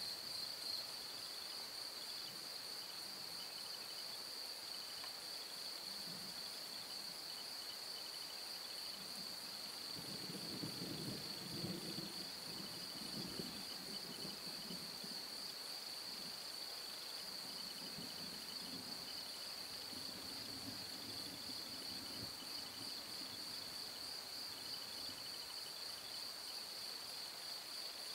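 Crickets chirping steadily, with distant thunder rumbling low about ten seconds in and again more faintly around twenty seconds in.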